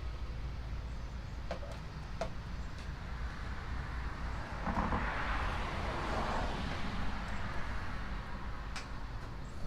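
A vehicle passing by, its sound rising and fading in the middle, over a steady low hum, with a few light clicks.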